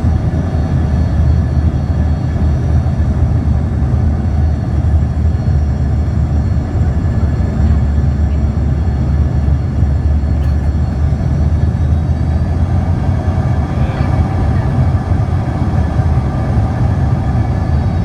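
Steady cabin noise inside an Embraer 145 in flight: a heavy low rumble from the rear-mounted Rolls-Royce AE 3007 turbofans and the airflow, with a set of steady engine whine tones above it. There is one faint click about halfway through.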